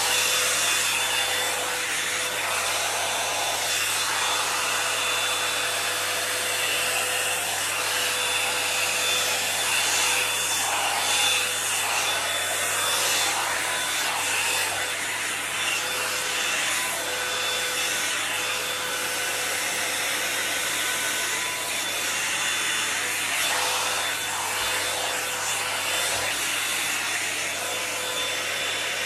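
Toni & Guy hot-air brush volumiser running steadily, blowing air with a faint steady whine under the rush. Its bristles are drawn through long hair as it runs.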